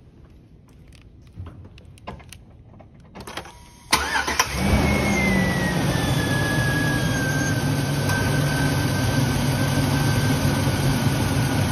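A few light knocks, then about four seconds in a 2003 Chevy pickup's 5.3-litre V8 cranks briefly, catches and runs at a high idle with a loud rush of air from the engine-driven cooling fan. A whine falls in pitch over the first couple of seconds after the start, then holds steady.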